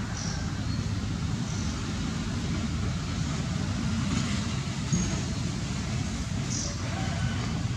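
Steady low outdoor background rumble, with a few short high chirps.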